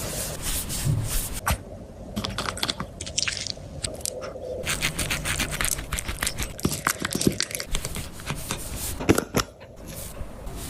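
Irregular crunching and chewing, a quick run of short clicks and crackles.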